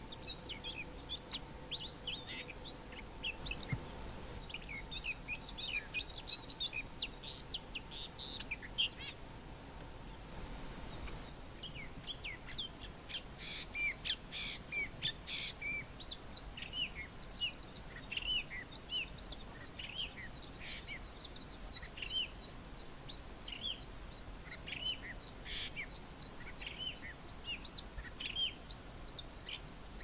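Male common fiscal singing a long, busy run of short chirps and whistles, a mix that takes in mimicry of other local birds. The song pauses for a couple of seconds about ten seconds in, then resumes. A faint steady hum lies underneath during the first third.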